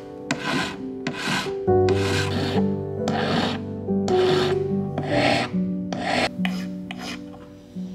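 A flat hand file rasping across the edge of a silver ring in short, light, careful strokes, about one every 0.8 seconds, fading slightly near the end. Background music plays underneath.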